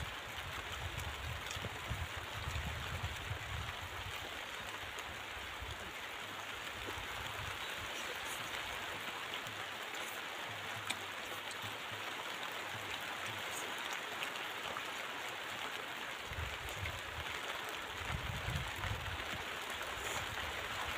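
Steady rushing noise like flowing water, with low rumbles near the start and again near the end and a few faint clicks.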